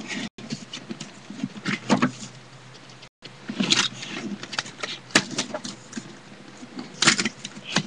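Plastic stencils and hangers being handled and taken off, making scattered clicks and rustles, strongest about two, four, five and seven seconds in.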